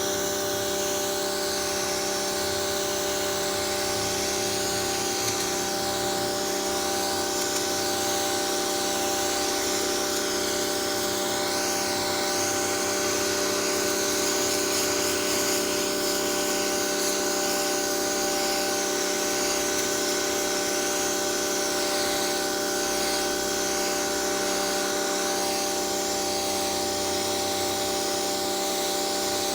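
Small electric pressure washer running steadily, its motor whining at a constant pitch over the hiss of the water jet.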